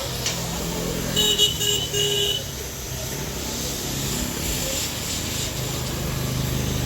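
A vehicle horn gives three short honks about a second in, over a steadily running engine.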